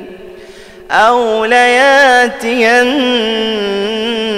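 A man's voice reciting the Quran in a slow, melodic tajweed style. After a short pause for breath, a long held line begins about a second in, its pitch wavering up and down in ornaments.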